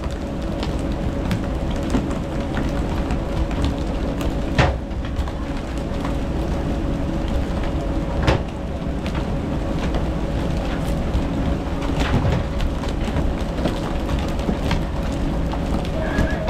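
Fishing boat's engine running steadily under a rush of water noise, with a few sharp knocks.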